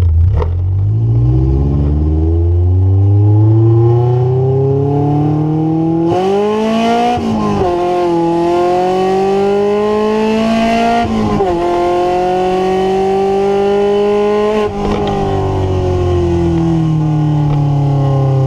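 Honda Civic EF sedan's four-cylinder engine accelerating, heard from inside the car. Its pitch climbs, drops back as it changes gear about six and eleven seconds in, climbs again, then falls slowly over the last few seconds as the car eases off.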